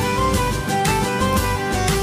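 Background music: an instrumental track with plucked and bowed string sounds over a steady beat.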